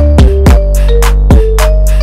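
Background music with a steady drum beat and held synth notes.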